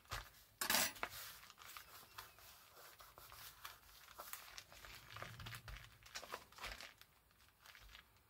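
Paper and card rustling, with small taps, as pieces are handled and moved about on a craft desk; the loudest rustle comes a little under a second in.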